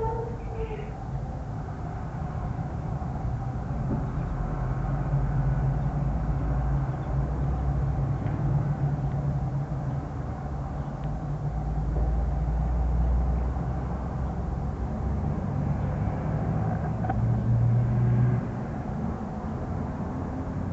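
A steady low rumble with a droning, engine-like hum, which drops in level suddenly near the end.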